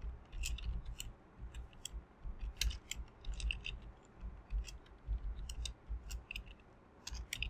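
Typing on a computer keyboard: light key clicks in short, irregular runs, with soft low thuds under the keystrokes.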